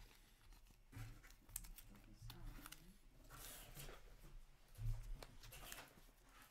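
Faint handling of hockey trading cards: cards sliding and tapping against each other with small scattered clicks, and a soft low bump about five seconds in.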